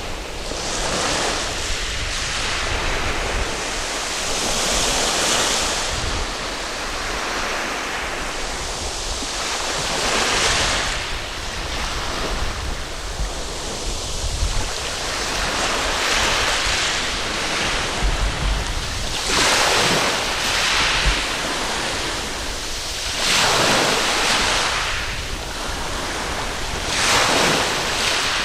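Waves breaking and washing up a sandy beach, swelling in a new surge every few seconds, with wind buffeting the microphone.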